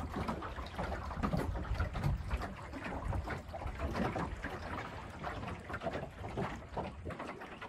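Water splashing and gurgling along the lapstrake clinker hull of a 16-foot catboat under sail, in short irregular splashes, with a low rumble of wind on the microphone that drops away near the end.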